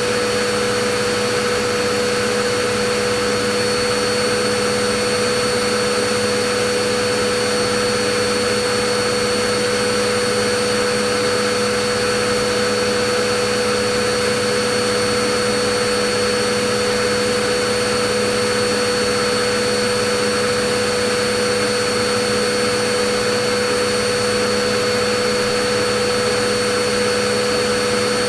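Vacuum cleaner motor running steadily, a constant rushing hiss with a steady hum and high whine, unchanging throughout.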